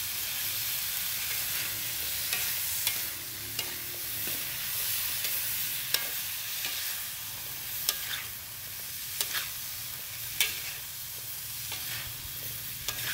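Lotus shoots and scallions sizzling as they are stir-fried in a wok, with a steady hiss and irregular sharp clicks and scrapes as a metal spatula turns them against the pan.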